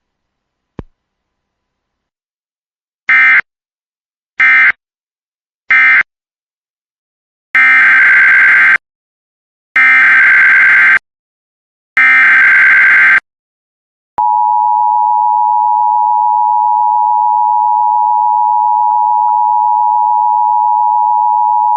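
Emergency Alert System signalling: three short SAME data bursts, the end-of-message code closing the previous alert, then three longer SAME header bursts of about a second each announcing the next alert. After them comes the steady two-tone EAS attention signal, lasting about eight seconds.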